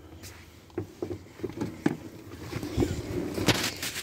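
Rustling and scattered knocks from someone moving about inside a truck cab and handling the phone, with a louder clatter about three and a half seconds in.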